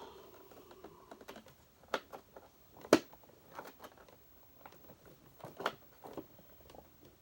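Scattered light clicks and knocks, the loudest about three seconds in: attachments being fitted back onto a Hoover vacuum cleaner.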